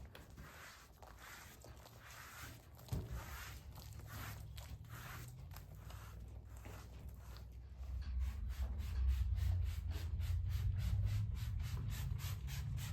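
Brush strokes rubbing over a horse's coat, a quick regular run of scratchy strokes about three a second, with a low rumble growing louder about eight seconds in.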